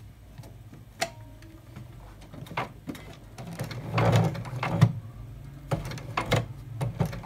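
Janome Secio 8200 sewing machine zigzag-stitching over a bead chain under a bead foot: a few separate clicks, then a short run of stitching about halfway through, with a low motor hum and clattering needle mechanism, and more single clicks near the end.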